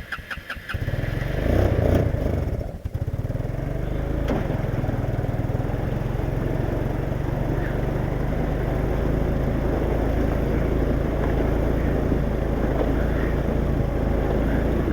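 ATV engine, still wet after the machine sank through the ice, picking up about a second in and rising near two seconds. It dips briefly just before three seconds, then keeps running steadily under throttle.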